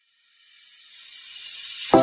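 Background music: a hiss rises steadily in loudness out of silence, then the music comes in with a sharp hit near the end.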